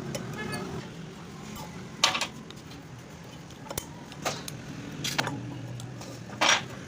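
Metal tools and parts clinking and knocking in a motorcycle workshop while a 125cc bike's drum hub is worked on: five or so separate sharp metallic strikes over a steady low hum, the loudest near the end.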